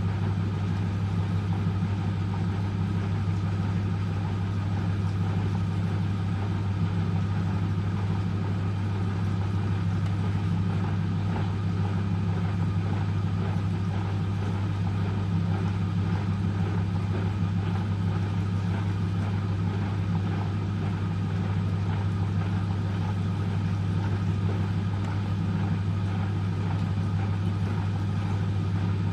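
Eurotech EW 450 washing machine (built by Antonio Merloni, 1997) running with a steady low hum that does not change, typical of the drain pump and the slow 400 rpm intermediate spin after the second rinse.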